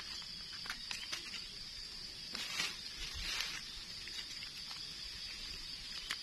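A knife scraping and cutting the soil-caked stem base of a freshly picked wild mushroom, with light clicks and crackling of dry leaves, a brief rustle about two and a half seconds in. A steady high-pitched drone runs under it.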